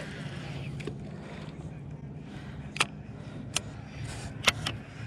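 Fleece sleeve rubbing against the camera as the arm moves across it, with three sharp clicks in the second half, over a steady low hum.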